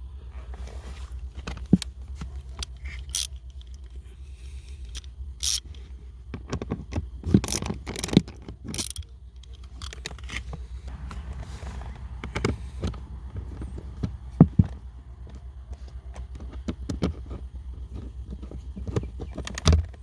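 Hand-tool work on car interior trim: a T20 Torx bit backing a bolt out, with scattered clicks, scrapes and clinks of metal tools and plastic panel pieces. A low steady hum lies under it.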